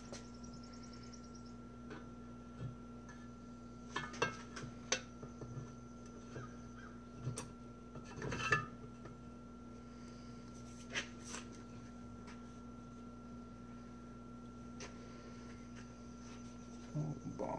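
Scattered metallic clinks and taps of manual-transmission parts (shift rails and case) being handled and fitted together, with a cluster of clicks around four to five seconds in and the loudest clink about eight and a half seconds in. A steady faint hum sits underneath.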